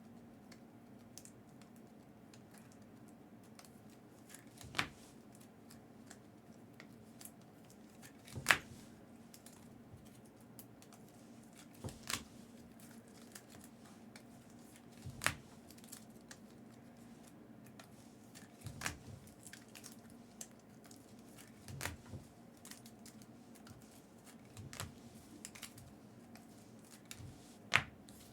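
Scattered light clicks and taps, about ten over the stretch with a few seconds between them, from trading cards and their packaging being handled, over a faint steady hum.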